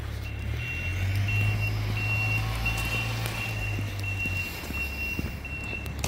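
A vehicle's reversing alarm beeping: one high tone repeating evenly, about one and a half beeps a second, starting just after the start, over a steady low rumble.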